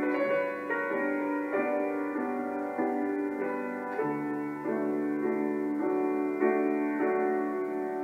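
Background music: slow, gentle instrumental with held notes that change about once a second.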